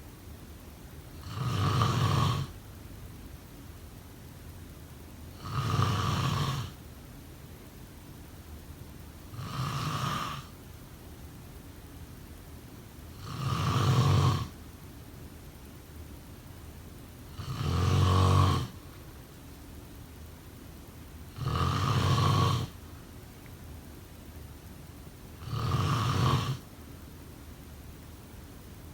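A person snoring in sleep: seven snores, each about a second long, coming steadily about every four seconds, with a faint steady hiss between them.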